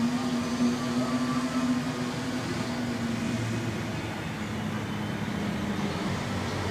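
Steady low mechanical hum with a held tone that gives way to a lower one about three and a half seconds in.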